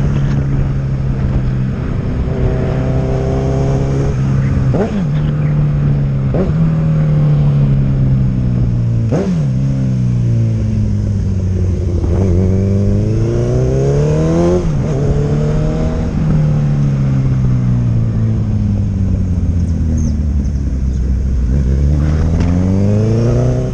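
Honda CB1000R's inline-four with an aftermarket sport exhaust, revved over and over, the pitch climbing and dropping back about half a dozen times, with steadier stretches between. A few sharp pops come as the revs fall, the backfire pops this exhaust gives when the throttle is closed.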